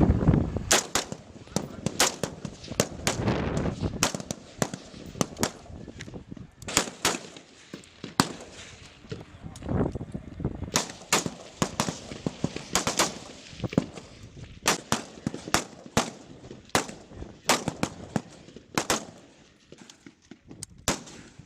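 Rifles on a firing line fire single shots one at a time in an irregular stream, often one to three a second, from several shooters, with no automatic bursts.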